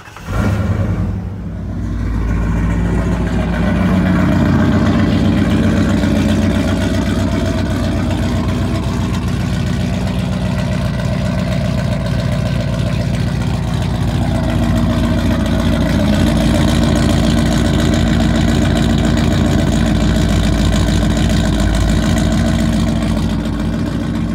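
Ford 460 (7.5 L) big-block V8 in a 1996 F350 catching right at the start with a brief rev flare, dipping, then settling into a steady idle. It has a newly replaced distributor, with the ignition timing set by ear because the timing light failed.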